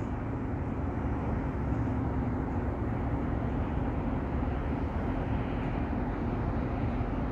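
Steady low mechanical hum and rumble with a constant droning tone.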